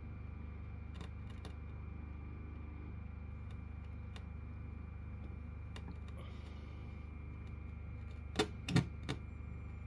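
A steady low hum with faint scattered clicks, then three sharp knocks in quick succession near the end.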